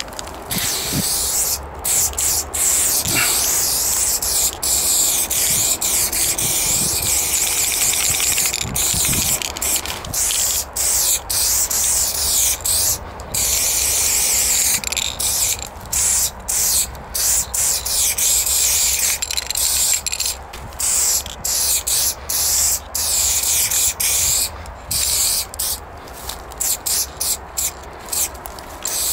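Aerosol spray paint can hissing in long passes with short breaks between them, turning into many quick short bursts over the last few seconds.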